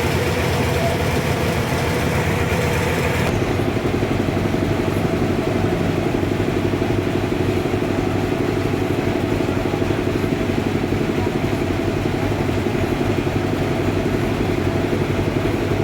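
Sawmill machinery running steadily, with an engine-like hum throughout; a hissing layer on top stops about three seconds in while the machine keeps running.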